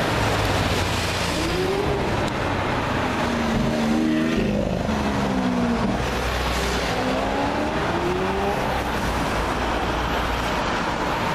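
Lamborghini Aventador LP750-4 SV's naturally aspirated 6.5-litre V12 accelerating away, its engine note rising and falling several times over steady traffic noise.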